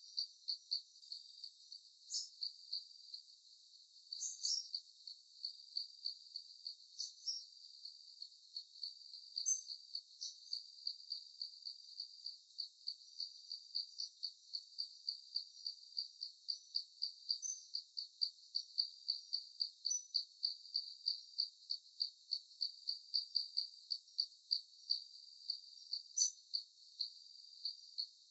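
An insect chirping in a steady rhythm, about two short chirps a second at one high pitch, with a few brief higher chirps now and then.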